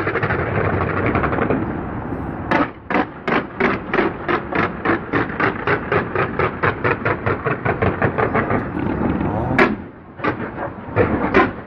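Fireworks: a dense crackle at first, then a rapid, even string of bangs at about four a second, one loudest bang, and a few scattered bangs after it.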